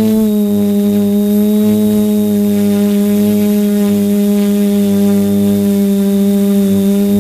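Multirotor drone's motors and propellers humming at a steady pitch, wavering slightly up and down with small throttle changes.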